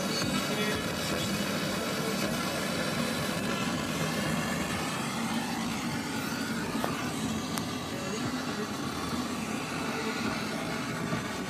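Steady road and engine noise inside a moving car's cabin, with music from the car's stereo mixed in.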